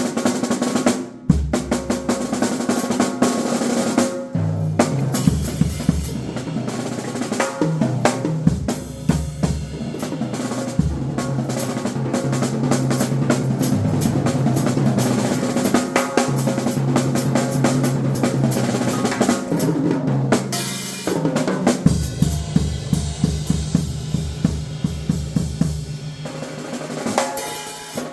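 Drum kit played solo: fast snare rolls and rimshots over bass drum and toms, with cymbals, in rapid continuous fills that break off briefly a couple of times.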